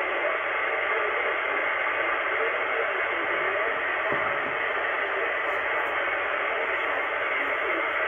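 ATS-25 DSP shortwave receiver in upper-sideband mode on 5450 kHz, putting out steady hiss and band noise with a weak voice from the RAF aviation weather broadcast faintly audible underneath.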